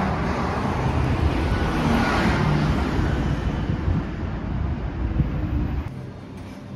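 Outdoor street traffic noise with a car passing, mixed with wind rumble on the microphone. It drops away abruptly about six seconds in.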